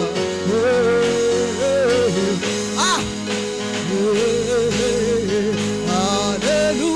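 Gospel worship music: a singer's wavering melody line, with no clear words, over steady sustained backing chords.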